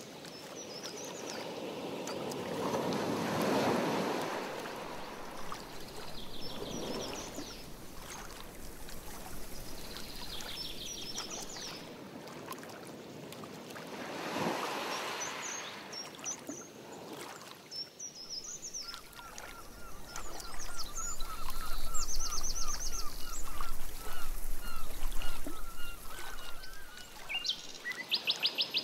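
Canoe paddle strokes swishing through lake water, with louder splashing in the second half. Songbirds chirp and trill throughout, and a bird calls a rapid run of short, evenly spaced notes in the latter half.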